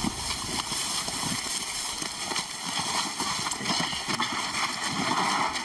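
Shuffling footsteps and rustling through dry grass, with scattered knocks and scuffs, as several people carry a heavy load together.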